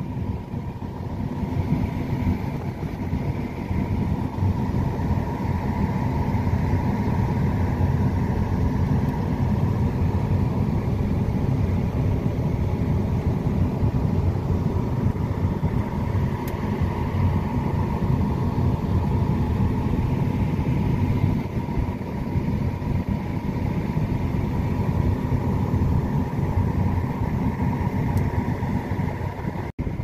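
Combine harvester running steadily while cutting soybeans, heard from inside the cab: a constant drone of engine and threshing machinery with a faint steady whine.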